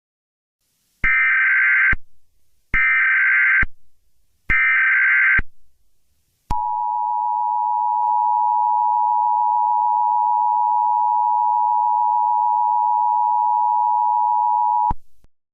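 Emergency Alert System signalling: three one-second bursts of SAME header data, a buzzy digital chatter, followed by the EAS two-pitch attention tone held steady for about eight seconds before cutting off.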